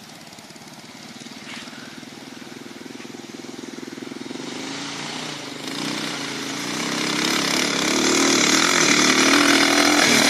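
Off-road buggy engine coming closer, getting steadily louder, its pitch wavering up and down with the throttle.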